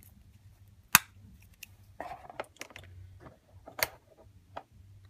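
Sharp plastic clicks and light rattling from handling clear refillable ink cartridges and their small plastic chip holders: a loud click about a second in, another near four seconds, and softer clicks between.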